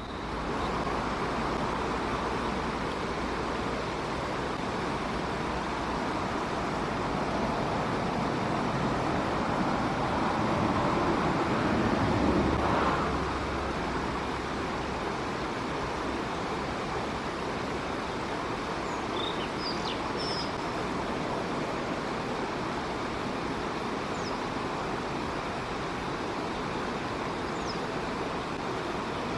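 Steady outdoor background noise of road traffic, with a vehicle passing that swells to its loudest about twelve seconds in and fades. A few faint, short, high bird chirps come in about two-thirds of the way through.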